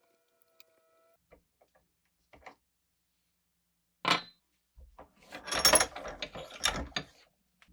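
Handling noise in a workshop: a single sharp knock about four seconds in, then about two seconds of clattering and scraping, with a few faint clicks before.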